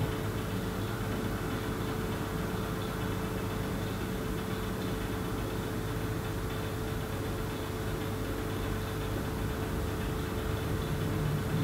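Steady background hiss with a constant hum: room tone.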